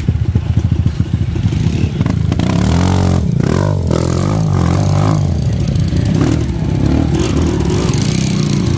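Enduro dirt bike engine running on the trail, revving up and down a few times a few seconds in, with some knocks and rattles in the first couple of seconds.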